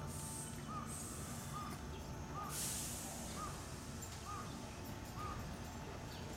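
A crow cawing six times, about once a second, over the low rumble of a Sanyo 5000 series electric train creeping out of the depot over the points. A short hiss comes about two and a half seconds in.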